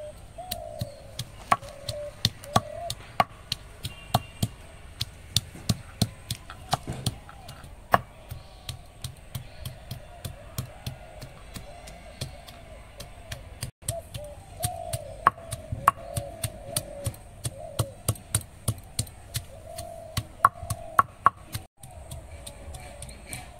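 Peeled garlic cloves being crushed with a stone block on a flat grinding stone (shil-nora): a long run of sharp stone-on-stone knocks, two or three a second, with short pauses.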